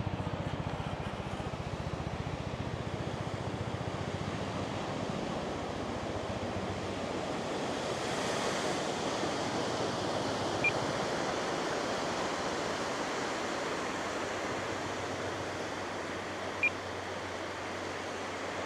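Steady rush of wind and beach surf, with a low pulsing drone that fades away over the first few seconds. Two short high blips come near the middle and near the end.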